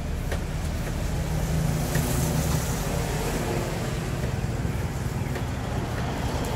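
Low engine rumble of nearby street traffic, swelling slightly about two seconds in, with a few faint clicks over it.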